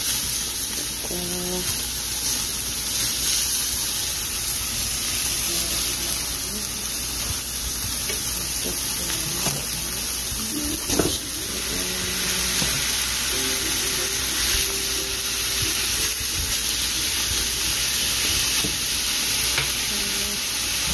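Diced onion, green pepper and tomato sizzling steadily in a frying pan, stirred with a silicone spatula, with a few light knocks of the spatula against the pan.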